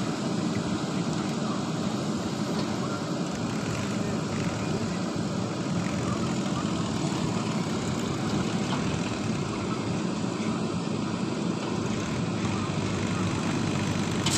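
Diesel engines of a JCB 3DX backhoe loader and a tractor running steadily while the backhoe loads soil into the tractor's trailer.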